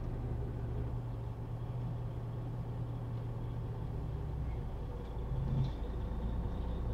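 Semi truck's diesel engine running steadily at low speed, heard from inside the cab as a low hum. The hum briefly gets louder and changes note a little over five seconds in.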